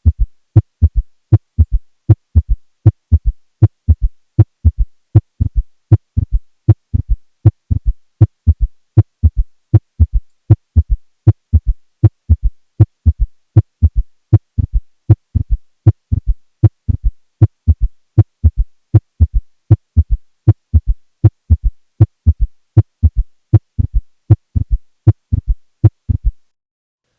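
Stethoscope recording of a patient's heart with an S3 gallop: regular low-pitched thuds repeat beat after beat, with a low-pitched early diastolic third sound after a second heart sound whose split comes and goes. In adults over 40 an S3 is usually pathologic, indicating left ventricular failure. The sounds stop about a second before the end.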